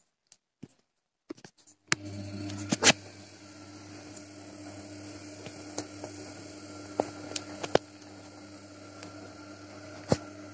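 Gorenje WA 50050 front-loading washing machine in a wash on its 95 °C cotton programme: after a near-silent pause, the drum motor starts about two seconds in and runs with a steady hum as the soapy laundry tumbles. Several sharp clicks and knocks sound over it.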